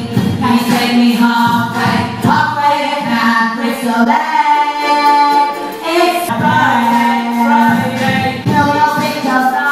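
Female voices singing a song live into microphones, with ukulele accompaniment.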